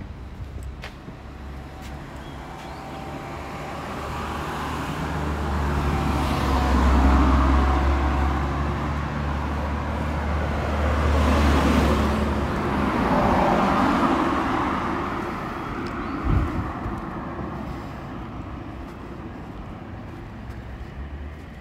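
Road traffic: vehicles passing close by, the noise swelling and fading over several seconds, with a heavy engine hum at its loudest. A single short knock comes near the end.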